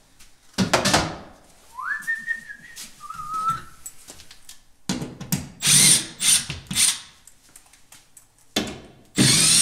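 Power drill running in several short trigger bursts about five seconds in and again in a longer run near the end, driving screws while fixing kitchen cabinets. Someone whistles a couple of notes about two seconds in, and there is a sharp knock about half a second in.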